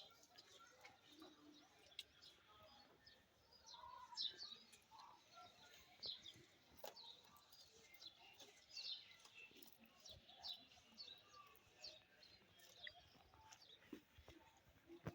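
Faint bird chirps: short, high calls repeated every second or so.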